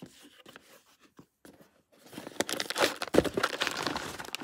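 Clear plastic packaging and a cardboard box crinkling and rustling as a model engine is handled out of its box. There is light handling for the first two seconds, then dense crinkling with many sharp crackles from about two seconds in.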